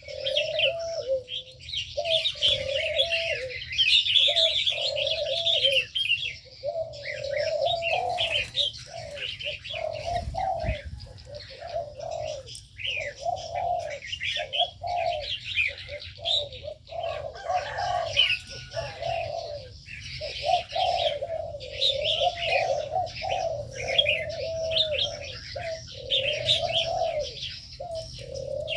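Doves cooing over and over in short arched notes, with many small birds chirping and twittering at the same time.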